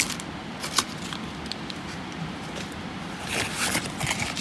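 Packets of crochet hooks and packaging being handled inside a cardboard shipping box: light rustling and scraping, with a single tap about a second in and a short spell of louder rustling about three and a half seconds in.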